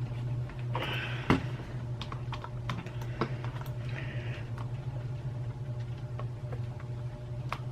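Small scattered clicks and brief scrapes of a precision screwdriver bit being fitted into and turned against a tiny screw in a plastic computer mouse; the bit is too small to grip. A steady low hum runs underneath.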